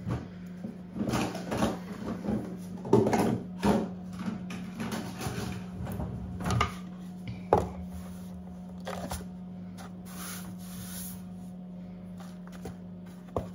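Plastic bread scraper scraping and tapping on a wooden worktop, a run of short scrapes and knocks in the first seven seconds, then a few lighter knocks as a plastic tub is handled. A steady low hum runs underneath.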